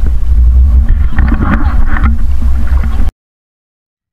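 Loud, steady low rumble in the open sea, with water splashing and sloshing for about a second near the middle, as someone wades chest-deep. It cuts off suddenly about three seconds in.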